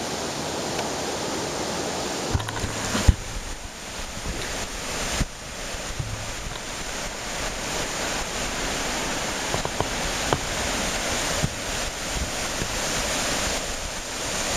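Rushing river water, a steady hiss of fast flow running high after rain, with wind buffeting the microphone now and then. A single sharp knock about three seconds in.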